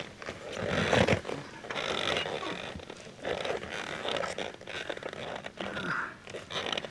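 Rubber inner tube and tractor tire being worked by hand, scraping and rubbing in irregular strokes as the tube is pushed under the tire onto the rim. The loudest stroke comes about a second in.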